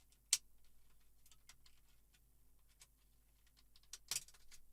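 Small clicks and taps of parts being handled during a TV teardown, with a sharp click about a third of a second in and a louder cluster of clicks near the end.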